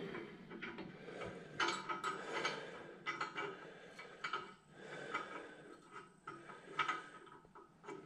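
Irregular light metallic clicks and scrapes of bolts, washers and nuts being handled and fitted by hand on a no-till drill's steel mounting bracket.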